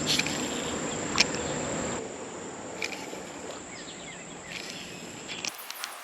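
Insects trilling steadily on one high tone, which stops abruptly near the end. A few sharp clicks come through, the loudest about a second in, with faint short chirps from birds.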